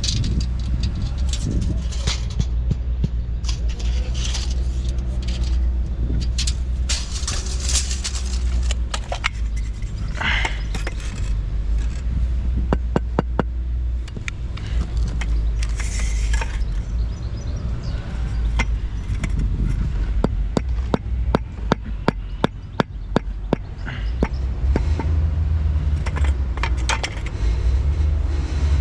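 A steady low machine rumble with many clicks and rattles over it, and a fast run of sharp clicks about two-thirds of the way through.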